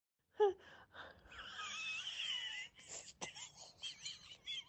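A woman's high-pitched, wheezing laughter playing back from a phone voice message. It starts as drawn-out, wavering squeals and breaks into quick gasping bursts of about four a second.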